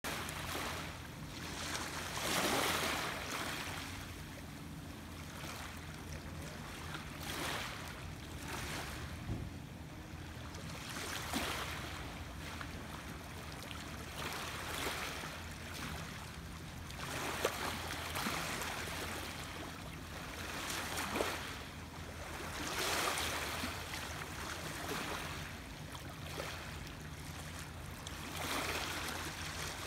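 Small waves lapping on open water. The wash swells and fades every few seconds, with a few brief splashes and a low steady hum underneath.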